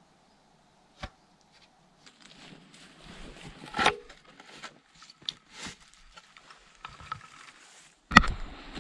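Irregular knocks and thumps with rustling, like someone moving about and handling things on wooden surfaces. A single sharp click comes about a second in, a louder knock near the middle, and a heavier cluster of thumps near the end.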